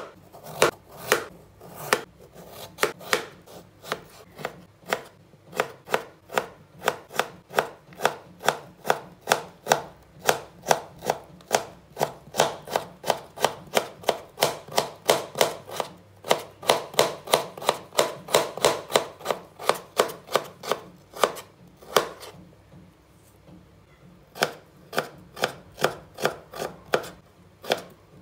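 Kitchen knife cutting raw potato into thin slices and matchsticks on a wooden cutting board, each stroke knocking on the board, about two to three cuts a second. The cutting pauses for a couple of seconds near the end, then resumes.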